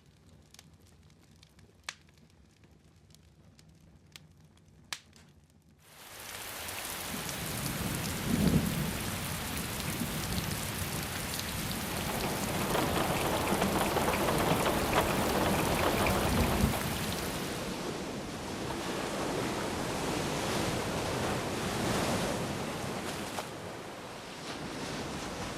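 A few faint, sharp pops like a fire crackling, then, about six seconds in, a loud steady rush of heavy rain comes in, with low rumbles of thunder twice.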